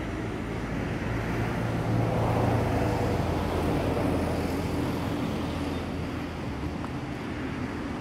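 Steady low engine rumble over a haze of outdoor noise, swelling about two seconds in and easing off near the end.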